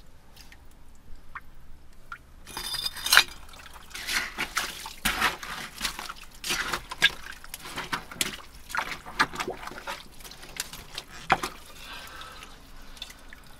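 Wet muck and water being worked by hand in a privy pit: irregular squelches, drips and splashes, with glass bottles clinking, starting about two and a half seconds in.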